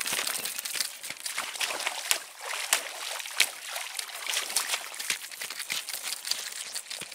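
Water splashing and sloshing as a person wades in boots through shallow water, with many small splashes and drips.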